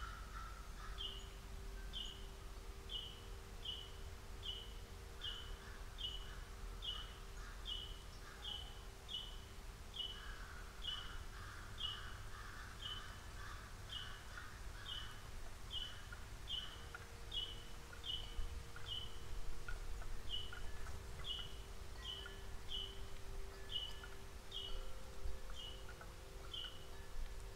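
Birdsong: a bird repeats a short, high, downslurred note about once a second, steadily and without a break. Harsher calls come in patches lower down, like those tagged as crows cawing just before.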